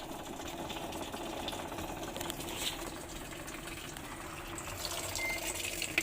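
Water running and churning in a pulsator (top-loading) washing machine tub, over a steady hum from the machine. A short beep sounds near the end.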